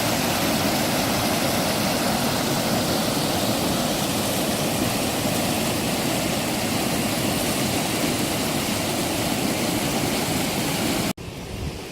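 A loud, steady rushing noise with no distinct events in it, which starts and cuts off suddenly.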